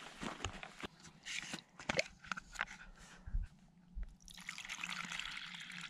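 A few small clicks and knocks, then, about four seconds in, water starts pouring out in a steady stream to give a dog a drink.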